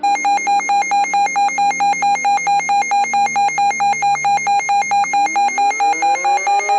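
Electronic alert tone: a harsh, buzzy beep pulsing about four times a second, beginning abruptly, over a background of sliding tones that drift downward and then, about five seconds in, start to rise.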